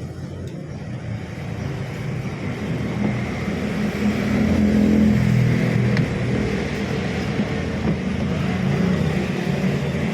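Panasonic washing machine running with a new motor capacitor fitted: the motor hums and the drum turns, building up over the first four seconds and then holding steady.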